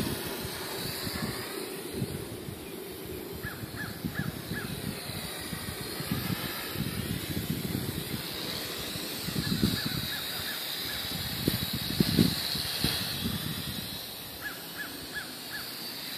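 WLtoys V959 quadcopter's motors and propellers whining, the pitch rising and falling as it manoeuvres, over gusty wind buffeting the microphone. A short run of about four quick high ticks comes three times.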